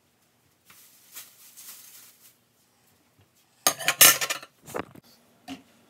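Kitchen dishes and utensils being handled. A soft rustle comes first, then a loud clatter of clinks about four seconds in, followed by a couple of lighter knocks.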